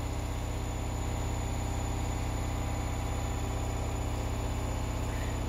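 Steady low hum with a faint high-pitched whine above it, unchanging throughout.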